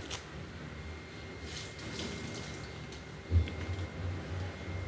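Quiet handling noises at a kitchen counter, with one dull knock about three and a half seconds in, over a low steady hum.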